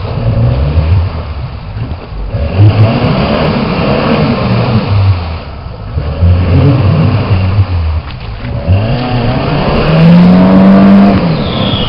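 Off-road 4x4's engine revving hard again and again as it struggles through deep water and mud, the revs rising and falling, with a long high rev near the end. The wheels are churning and splashing water.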